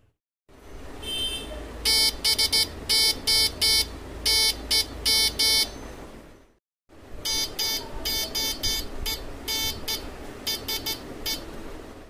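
A 555-timer oscillator drives a small 32-ohm speaker straight from pin 3, keyed on and off by a push switch in the power line. It beeps short and long tones in two groups of Morse code, the word 'boy' and then the word 'Morse'.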